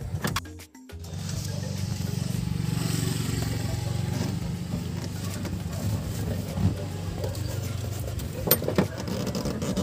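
A motor vehicle engine running steadily, with a few sharp clicks near the end.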